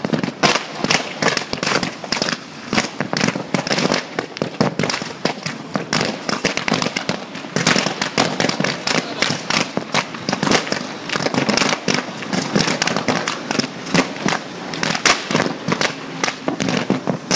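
Lithium cells exploding: a dense, continuous run of sharp pops and crackles, many a second, like a string of firecrackers.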